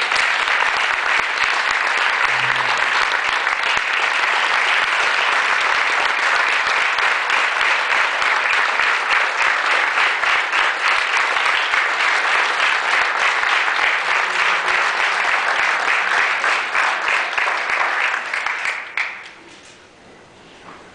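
A roomful of people applauding steadily, a dense patter with individual claps standing out, dying away quickly about nineteen seconds in.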